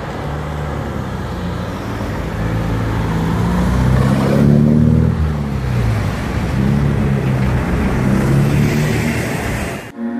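Car engines in street traffic, one accelerating away with its engine note climbing and falling, loudest about four to five seconds in; the sound cuts off suddenly near the end.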